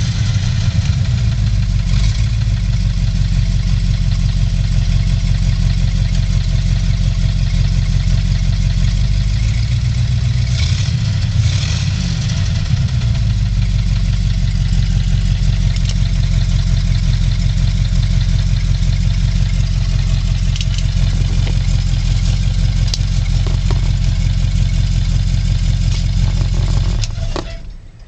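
The 1954 Buick Century's V8 engine, heard from inside the cabin, is running, its pitch rising and falling a few times in the first half and then holding at a steady idle. About a second before the end it is switched off and the sound dies away quickly.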